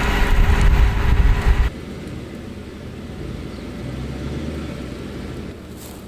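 Case IH 7120 combine running close by, a loud low rumble with a steady whine, over wind on the microphone; it cuts off suddenly under two seconds in, leaving a quieter, even low rumble.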